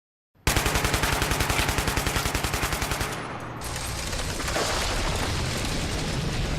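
Automatic gunfire sound effect: a burst of rapid, evenly spaced shots lasting about two and a half seconds, followed by a low rumbling wash of sound.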